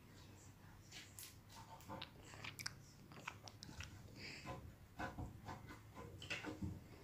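Slime being squeezed and kneaded by hand: faint, irregular sticky clicks and small crackles.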